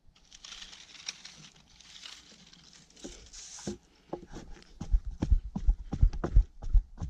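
Shovel blade working thick, sticky clay in a post hole: a scraping rasp for the first few seconds, then a run of dull thuds about two a second as the blade chops into the clay.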